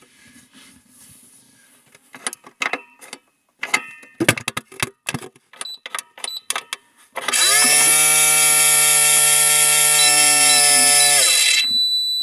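Clicks and knocks of plastic being handled, then a toy microwave's electronic running sound plays through its small speaker: a loud, steady buzzing hum for about four seconds, starting about seven seconds in. As the hum stops, a thin high tone holds on briefly.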